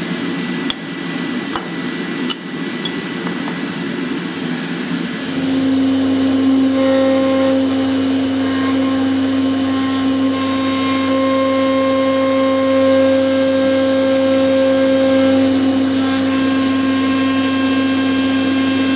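For the first five seconds there is a steady rushing machine noise with a few light clicks. Then an AXYZ CNC router's spindle comes in with a steady tone and high whine as its cutter mills a 15 mm thick aluminium plate, and it runs on evenly.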